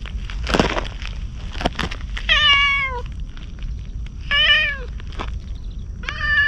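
Orange tabby cat meowing three times, each meow under a second long and dropping in pitch at the end. A short burst of rustling noise comes about half a second in.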